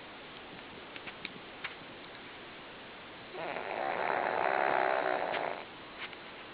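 A sleeping pug snoring: one long snore of about two seconds, starting about halfway in, with a few faint clicks before it.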